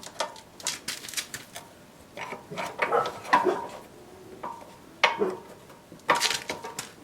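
Steel hand tools clinking and scraping against the motorcycle's metal parts as a long screwdriver is levered to shift the rear wheel for chain adjustment: a series of irregular sharp clanks, some with a brief metallic ring.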